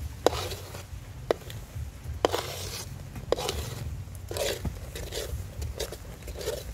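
Metal ladle scraping around a wok while stirring a thick shrimp-paste sauce, with a sharp click of the ladle striking the pan about once a second.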